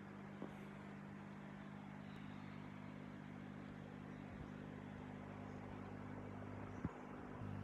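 Steady low hum of aquarium pump equipment over a faint even hiss of water and bubbles. Two small knocks cut in, a slight one about half a second in and a louder one near the end.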